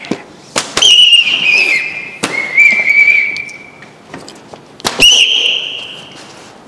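Plastic whistles blown in three long, warbling blasts, each one started by a sharp crack.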